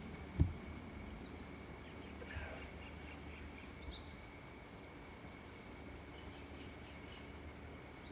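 Steady drone of insects with a couple of short bird chirps. A single low thump comes about half a second in.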